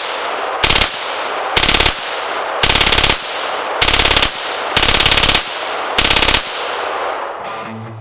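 A full-auto FN P90 in 5.7×28 mm (a PS90 converted to a machine gun) fires a string of short bursts of rapid shots, about one burst a second, with a ringing echo after each. About six bursts fall in this stretch, plus the tail of one that starts just before it.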